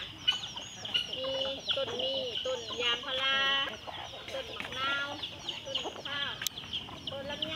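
Chickens clucking, with chicks peeping in quick, high chirps and one longer, drawn-out call about three seconds in.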